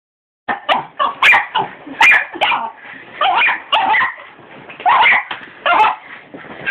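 Dog barking repeatedly at a vacuum cleaner: a rapid run of sharp barks, about one or two a second, starting about half a second in.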